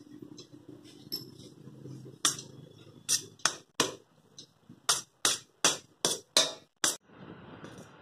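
Hands crumbling steamed ragi flour in a stainless steel bowl, with a run of about ten sharp clicks and knocks against the steel from about two seconds in. Near the end they stop and a steady hiss takes over.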